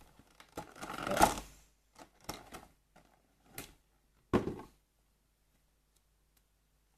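Handling noise from unpacking a die-cast model aircraft's box: a short rustle, a few light clicks, and a sharper knock about four and a half seconds in.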